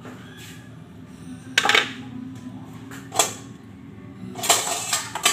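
Metal kitchen utensils and dishes clattering and clinking in three bursts: one about a second and a half in, a short one about three seconds in, and a longer clatter near the end.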